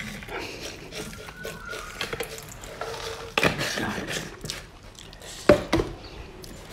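Dried chili flakes shaken out of a glass jar onto a plate of food, a light patter of small clicks. There are a couple of sharp knocks, about three and a half seconds in and, loudest, about five and a half seconds in.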